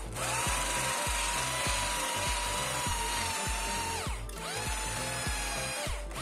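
A power drill spins a hole saw through 18 mm plywood with a steady motor whine. The whine drops away briefly about four seconds in and again near the end, then spins back up. Background music with a steady beat plays underneath.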